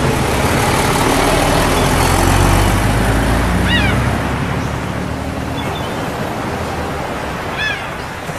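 Bus driving past with a deep engine rumble and road noise that eases off about halfway through, leaving a steady wash of seaside wind and surf. Two brief high chirps come about four seconds apart.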